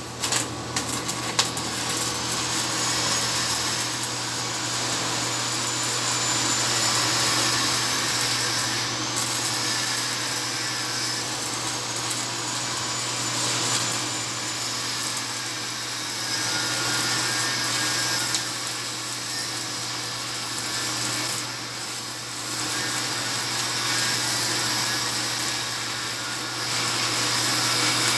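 Shielded metal arc (stick) welding: the electrode's arc crackling and sizzling steadily, after a few sharp crackles as the arc is struck in the first second or so.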